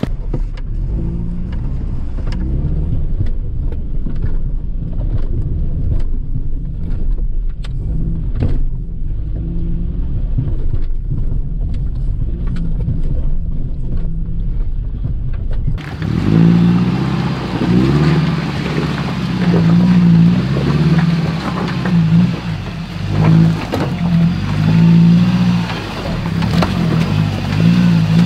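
Off-road 4x4 engine working at low speed over rocks, with scattered clicks and knocks over a low steady drone. A little past halfway the sound changes abruptly to a louder engine revving up and down in repeated pulls as the rig climbs.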